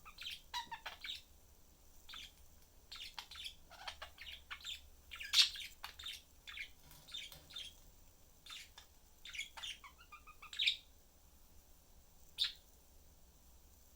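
Pet budgerigars chattering and chirping in short bursts, the loudest call about five seconds in, tapering to a single chirp near the end.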